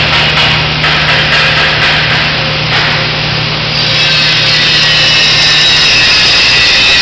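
Loud, continuous metal-shop power-tool noise, a grinding, sawing rush over a steady low hum. About four seconds in a high whine joins and holds, from an abrasive grinder working steel.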